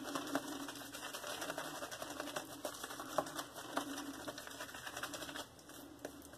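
Synthetic shaving brush (RazoRock Plissoft) working lather onto the face: a fast, dense run of small wet clicks and swishes that stops about five and a half seconds in.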